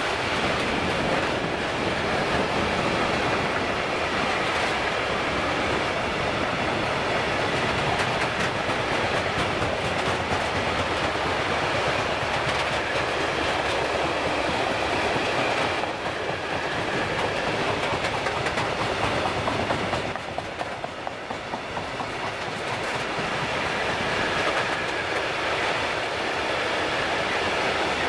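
Long freight train of loaded open coal wagons rolling past, the wheels clattering steadily over the rail joints. The sound dips briefly about twenty seconds in, then picks up again.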